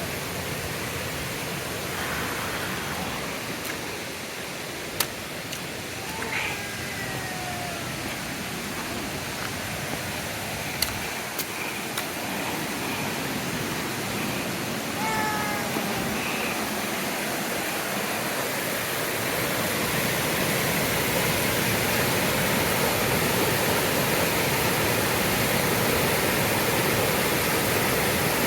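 Steady rushing of wind over the microphone, growing louder about two-thirds of the way through. A couple of short falling calls and a few sharp clicks come through it.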